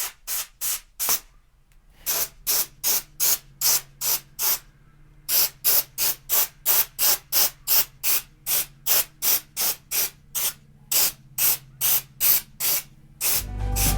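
Compressed air blowing dust out of a graphics card's heatsink fins in short, rapid bursts, about three hisses a second. The runs are broken by two brief pauses. Near the end a louder continuous hiss takes over.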